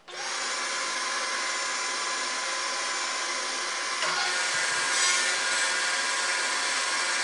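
Table saw starting up abruptly and running with a steady motor whine; about four seconds in the blade begins ripping a strip of wood fed along the fence, and the sound gets louder and coarser.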